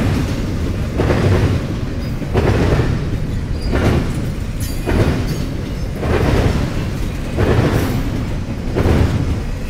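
CSX intermodal freight train rolling past, its wheels banging across the railroad crossing diamond in a steady repeating pattern about every second and a quarter over a continuous low rumble.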